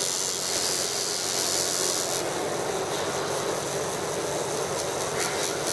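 Coil tattoo machine buzzing steadily while it tattoos skin.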